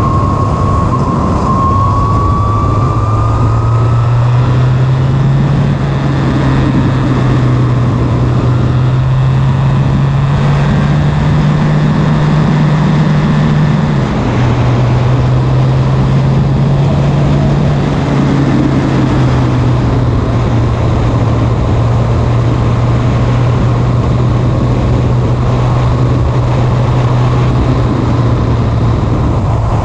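Formula Renault single-seater's engine heard on board at full throttle, the note climbing steadily with a thin rising whine. About halfway through it drops suddenly at an upshift, then holds nearly steady at speed over a constant rushing noise.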